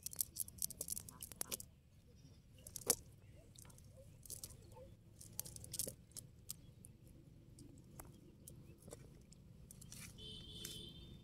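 Wet fishing net being handled and weeds pulled out of its mesh: scattered crackling rustles and sharp clicks, thickest in the first two seconds.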